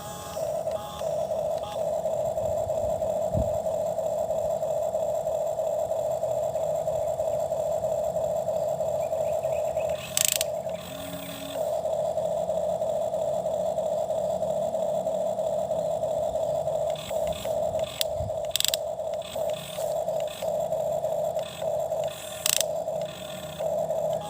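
Small electric motor of a toy excavator whining steadily. It cuts out for about a second and a half around the middle, then runs in short start-stop spurts near the end, with a few sharp clicks and light scraping of the digging.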